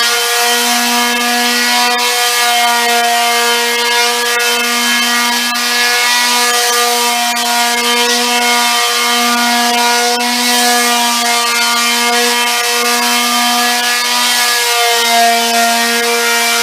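Electric orbital sander running steadily with a 150-grit disc on a solid cherry tabletop: a steady motor whine over the hiss of the sandpaper rubbing the wood, during a light second sanding pass.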